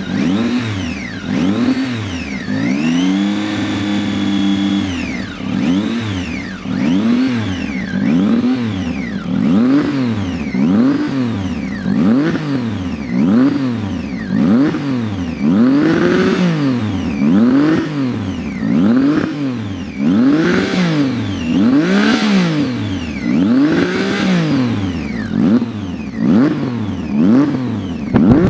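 Triumph Tiger 800 three-cylinder engine revving through a Hurricane aftermarket sport exhaust: repeated throttle blips, about one a second, each rising and falling in pitch, with one rev held for about two seconds about three seconds in. The exhaust gives a loud, deep rumble.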